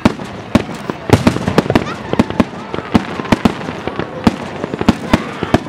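Aerial fireworks bursting: a rapid, irregular string of sharp bangs and cracks, about four or five a second, some much louder than others.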